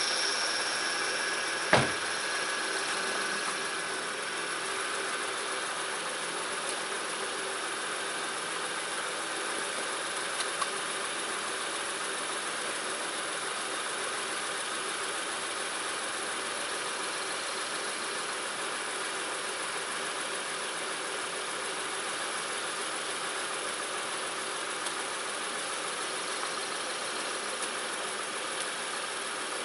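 2006 Honda Ridgeline's 3.5-litre V6 idling steadily just after start-up, with its newly replaced power steering pump running. A high whine in the first few seconds fades away, and a single sharp knock comes about two seconds in.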